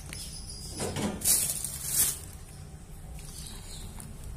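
A metal spoon scraping and stirring through flour in a plastic tub, with boiling water poured in from a metal pot onto the flour; the loudest, noisiest stretch comes about a second in, with two sharp peaks.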